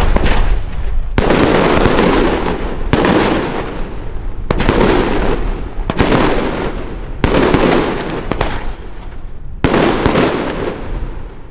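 Jorge Super Show 6 firework battery firing shot after shot: seven sharp bangs of aerial bursts, about one every one and a half seconds, each trailing off in a long echoing rumble.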